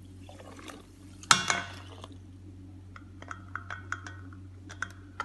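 A sharp clink about a second in, then soda water tipped from a plastic measuring cup into a stainless steel bowl, fizzing with small quick crackles.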